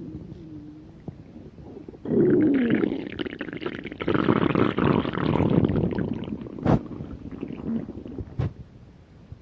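A hungry stomach growling and gurgling: a faint low rumble first, then a loud, long gurgling growl with sliding pitch from about two seconds in. It carries two sharp pops near the end and dies away.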